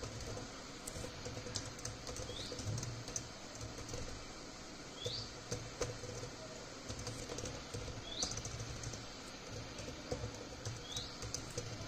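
Faint computer keyboard typing in scattered clicks, while a bird gives a short rising chirp about every three seconds in the background.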